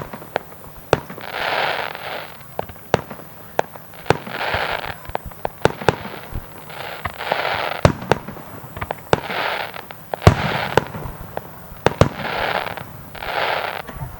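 Aerial fireworks bursting: many sharp bangs, some close together, with about seven short bursts of hissing crackle coming every second or two between them.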